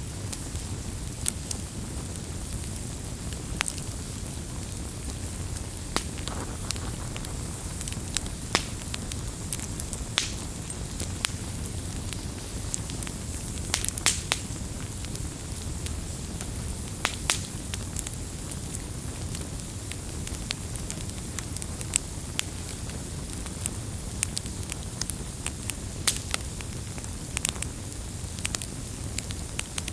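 Burning firewood with a steady low rush of flame and scattered sharp crackles and pops, several a second at uneven intervals.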